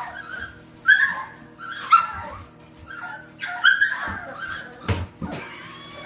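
Bulldog puppies whining and yipping in a series of short, high cries. There are two dull knocks about five seconds in.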